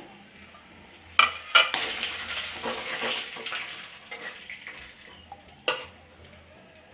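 Whole garam masala and bay leaves sizzling in hot oil in a metal kadai while a metal spatula stirs them. The spatula knocks sharply against the pan about a second in and again near the end, and the sizzle swells in between.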